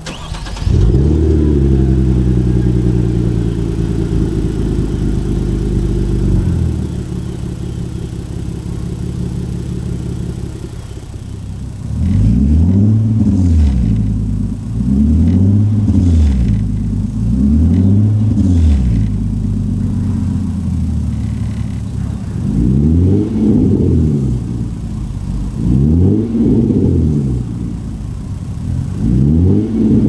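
Hyundai Genesis Coupe 3.8 V6 engine with an aftermarket catback exhaust starting up about half a second in and running at a fast idle, then settling to a lower idle. Later it is revved in quick blips that rise and fall: three in a row, then after a short idle three bigger revs near the end.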